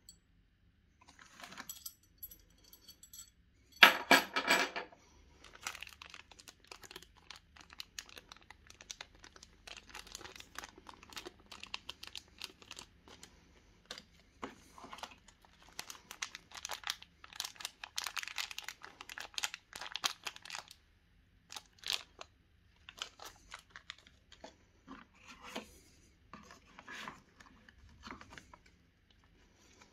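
Packaging being handled: plastic bags of mounting hardware crinkling and cardboard rustling, with small parts clicking, as a CPU cooler's accessory box is unpacked. Irregular crackles throughout, loudest about four seconds in.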